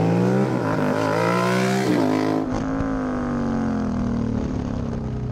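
Moto Guzzi transverse V-twin motorcycle engine accelerating hard, its note rising for about two seconds, then dropping sharply at a shift or throttle lift and running on at a steadier, slowly falling pitch.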